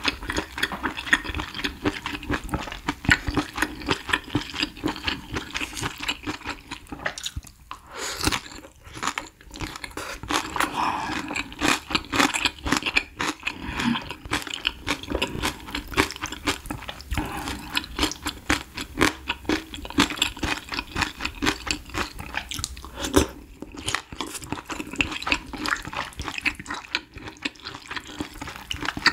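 Close-miked eating: irregular chewing and crunching of spicy hot pot and coriander kimchi, with sips of broth taken from a wooden spoon.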